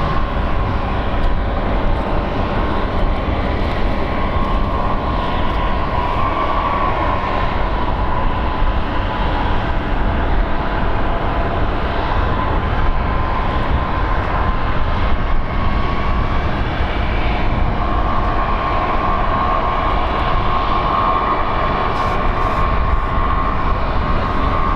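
Airbus A321neo airliner's turbofan engines running steadily: a constant rumble under a high whine that wavers slightly in pitch.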